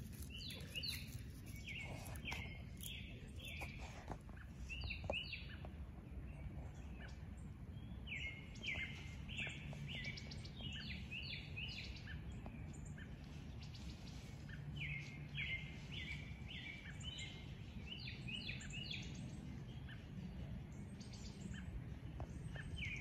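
A songbird singing phrases of several quick, high, down-slurred notes, repeated every few seconds, over a steady low outdoor rumble.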